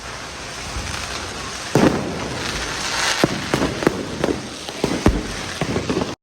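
Fireworks going off: a steady crackle with a string of sharp bangs, the loudest about two seconds in. The sound cuts off suddenly at the end.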